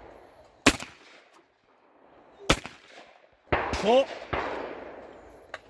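Shotgun firing at clay targets: three sharp blasts, about 0.7, 2.5 and 3.5 seconds in, the first the loudest.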